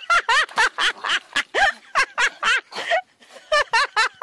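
Loud, high-pitched laughter in rapid repeated bursts, about four a second, with a brief break about three seconds in.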